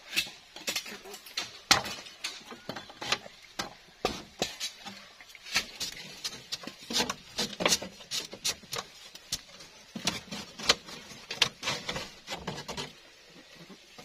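Bamboo strips clicking and clattering as they are handled and fitted into a bamboo-slat wall: many irregular knocks and clicks.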